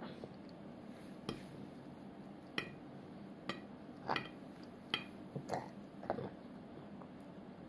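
A toddler's metal fork clicking against his plate as he stabs at the food on it: about eight sharp, irregular clicks.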